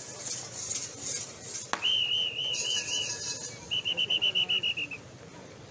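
A pea whistle blown in two trills: after a sharp click, a wavering trill about two seconds in, then a quick run of about a dozen short blasts a little later. A steady high hiss sits under the first trill.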